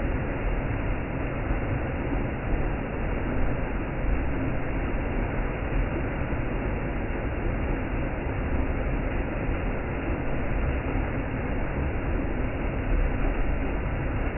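Waterfall: a steady, unbroken rush of falling water, heavy in the low end.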